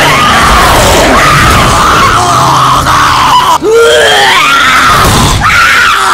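Haunted-house prop soundtrack playing loudly: shrill screams and groans over music, with a sharp rising shriek a little past halfway.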